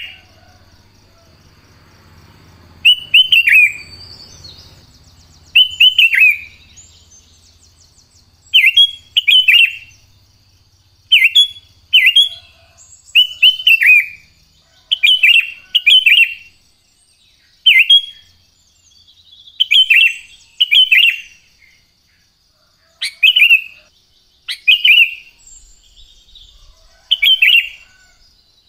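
Sooty-headed bulbul (kutilang) singing: short, bright whistled phrases, often in pairs, repeated every second or two. A faint steady high-pitched tone runs beneath the song.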